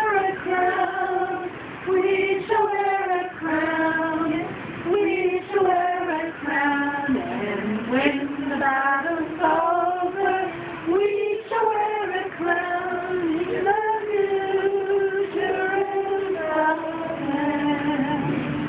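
A small group of women and children singing a song together.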